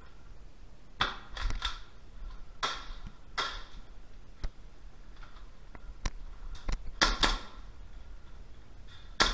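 Scattered airsoft gunfire: sharp single shots and short bursts at irregular intervals. A cluster comes about a second in, more follow around three seconds, a loud pair comes about seven seconds in, and another comes just before the end.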